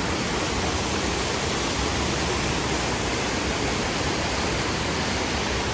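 Hedge Creek Falls waterfall: a steady, even rush of falling water.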